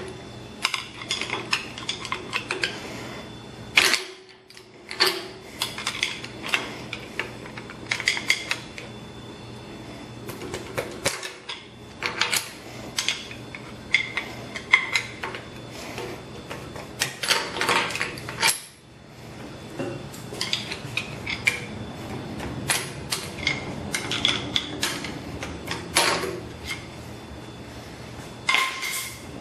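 Steel tools and engine parts clinking and tapping as the fuel injectors are worked loose and lifted out of a Cummins 24-valve common-rail cylinder head: many separate clicks and clanks at an uneven pace, with short pauses.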